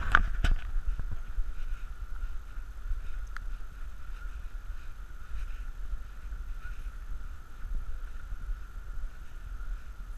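Outdoor microphone rumble and handling noise from a camera carried by someone walking along a dirt trail, with soft footstep taps, a steady faint high hum, and a few sharp clicks right at the start.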